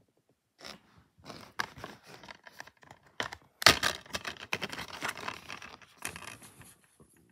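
Plastic DVD case being handled and opened: uneven rustling and scraping with sharp clicks, the loudest snap about three and a half seconds in.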